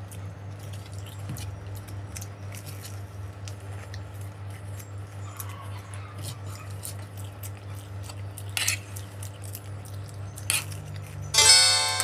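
Eating at the table: scattered small clicks and taps of fingers and food on plates, with chewing, over a low steady hum, and two sharper clicks shortly before the end. Plucked-string music starts near the end.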